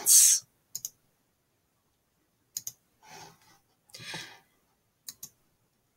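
Computer mouse button clicks: a few short, sharp ticks spread through the quiet, several heard as a quick pair of press and release. Two soft breathy noises fall between them.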